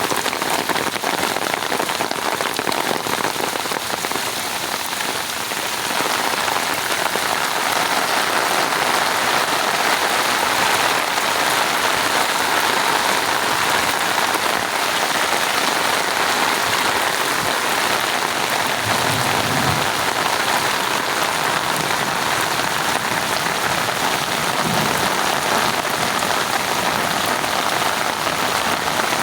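Steady rain falling and pattering on surfaces, growing slightly heavier about six seconds in.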